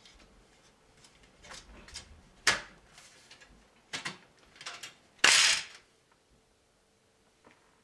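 Plastic front panel of an AeroCool Mechatron PC case being pushed back onto the chassis: a series of separate clicks and knocks, the loudest a sharp snap a little over five seconds in that sounds as if something broke. The case fans hum faintly underneath.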